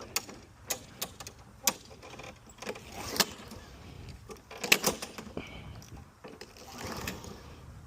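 Gas lawn mower's recoil pull-start cord yanked a few times, with rattles and clicks, the engine not catching: a mower that is hard to start.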